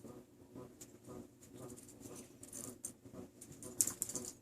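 Faint scuffling and scattered light clicks of RagaMuffin kittens at play, with a sharper click near the end.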